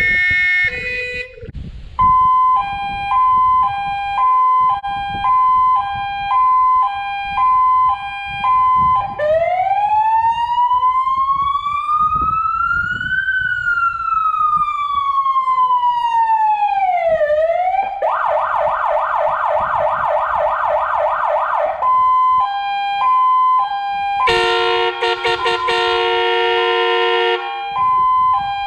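Electronic siren of a Star 200 fire truck, a ZURA 1120 unit, cycling through its signals. After a brief different tone at the start it plays a hi-lo two-tone, then one slow wail that rises and falls, then a fast yelp. It goes back to the two-tone, sounds a few seconds of a horn-like chord, and ends on the two-tone again.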